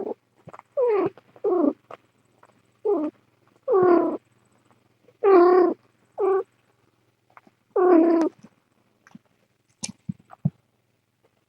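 A cat meowing: seven wavering calls, about a second apart, each under half a second, then a few faint ticks.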